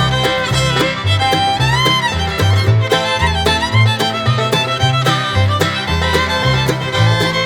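Bluegrass-style background music with fiddle over a bouncing bass line and plucked strings.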